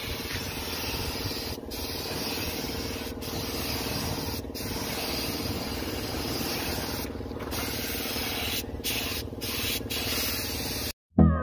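Compressed-air spray gun hissing steadily as it sprays paint, with a steady low hum underneath. The hiss breaks off for an instant several times and cuts off suddenly near the end.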